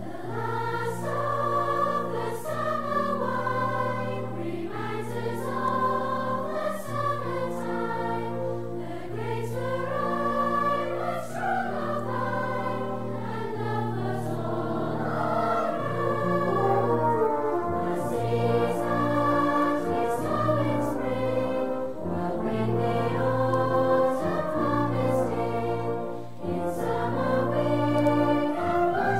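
Outro music: a choral piece with brass and orchestra, voices singing over a sustained bass.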